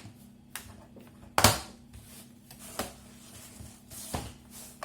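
Plastic clips of a laptop's bottom cover snapping into place as the panel is pressed down onto the chassis. A few sharp clicks, the loudest about a second and a half in.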